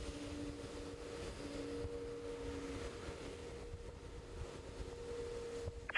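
Airbus A330-900's Rolls-Royce Trent 7000 jet engines at taxi power as the airliner rolls past: a steady low rumble with two held humming tones, the lower one dropping out about halfway through.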